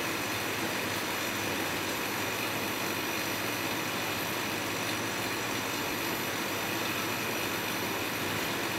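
Steady, even running noise of a pick-and-place assembly robot as its gantry carries the suction head across the table.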